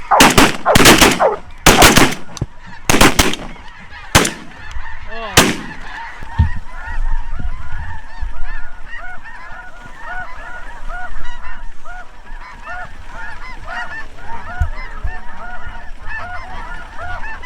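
A volley of shotgun blasts, several guns firing about eight shots in quick succession over the first five seconds or so. Through and after the shooting, a large flock of geese keeps up a dense chorus of honking calls.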